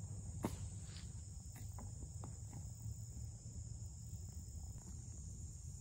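Steady high-pitched chorus of insects, with a few soft knocks and steps in the first three seconds from the camera being carried.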